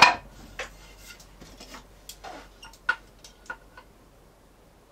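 A hand-plane stroke ends sharply at the start, then a few light clicks and knocks as a planed wooden board is shifted on the workbench and lifted off it.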